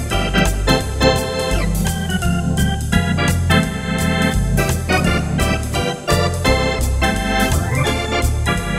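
Wersi Atlantis SN3 electronic organ playing swing with a drawbar registration: chords and melody on the manuals over a pedal bass line that moves about twice a second, with a steady beat of short clicks.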